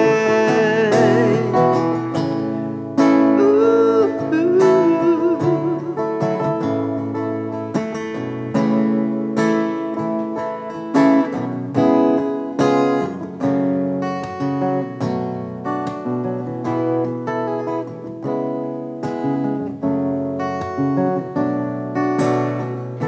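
Acoustic guitar played solo, picked notes and strummed chords in an instrumental break. A held sung note fades out in the first second or two, and a short wordless vocal phrase comes in a few seconds in.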